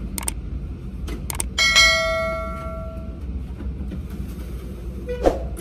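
Subscribe-button sound effect: a few mouse clicks, then a bell ding that rings out and fades over about a second and a half. A steady low rumble runs underneath, and a single thump comes near the end.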